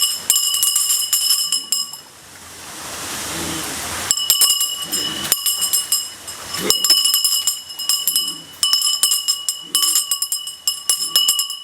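A metallic clinking and ringing sound, with rapid clicks and steady high ringing tones. It plays in two long stretches, separated by about two seconds of hiss that swells up. This is the mysterious 'sound' that the skit asks about.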